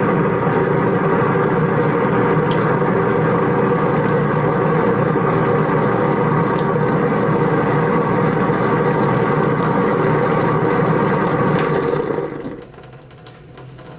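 Kitchen sink garbage disposal running loudly and steadily with a thin stream of hot water going in and a disposal-cleaner packet inside. It stops about twelve seconds in.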